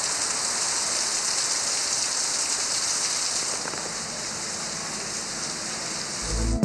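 Heavy rain pouring down onto standing floodwater, a steady dense hiss of drops that eases slightly about halfway through.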